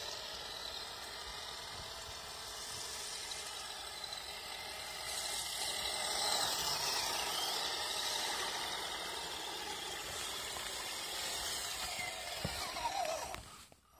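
Radio-controlled Axial SCX10 crawler driving through shallow water on ice: a steady hiss of water spray off the tyres together with the whine of its electric motor and gears. Near the end the whine falls in pitch as it slows, then the sound cuts off suddenly.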